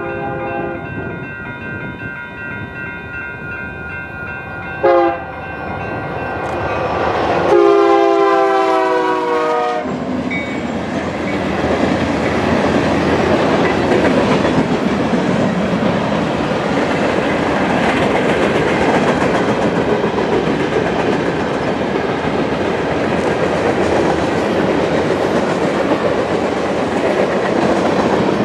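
Diesel freight locomotive's multi-chime air horn sounding for a grade crossing: the end of a long blast, a short toot about five seconds in, then a long blast that stops about ten seconds in as the locomotive goes by. A long string of hopper and tank cars follows, rolling past with a steady wheel rumble and clickety-clack.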